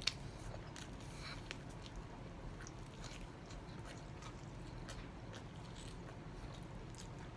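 Faint chewing and biting on chicken wings: scattered soft mouth clicks and crunches over a low background hum, with a slightly sharper click at the very start.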